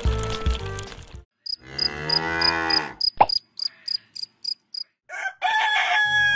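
A cow moos once, a long call of about a second and a half, over crickets chirping about three times a second. Background music breaks off just before and starts again near the end.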